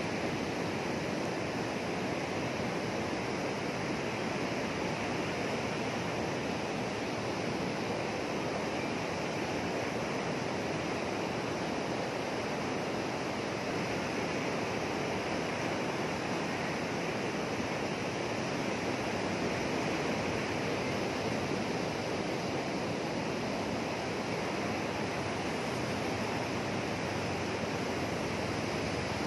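Rough sea surf washing onto a sandy beach in strong wind, a steady unbroken wash of waves with no single break standing out.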